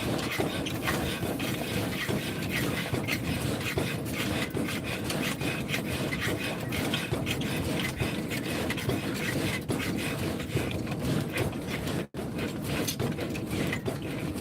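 Continuous rasping and scraping made of many quick strokes, with a sudden brief break about twelve seconds in.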